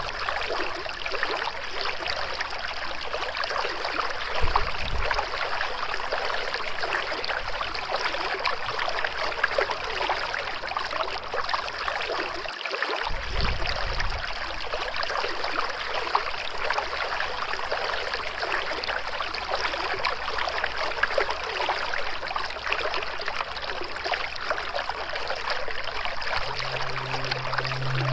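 Steady flowing water, a continuous babbling, trickling rush without pause. A soft low held music tone comes back in near the end.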